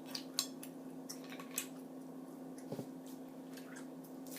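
Scattered light clicks and clinks of a fork and mussel shells against a plate, over a steady low hum.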